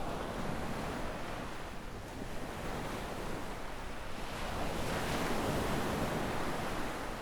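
Small waves breaking and washing up a sandy beach, a wash near the start and a fuller, louder one about five seconds in, with a light wind on the microphone.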